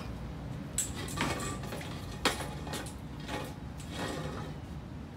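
A few short knocks and rustles, one every second or so, the sharpest just past two seconds in, over a steady low background rumble.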